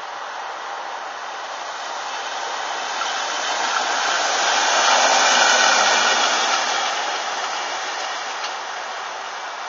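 Small rail-mounted overhead-line maintenance vehicle with a crane running past on the track: a steady rushing noise that builds to its loudest about halfway through and fades as it moves away.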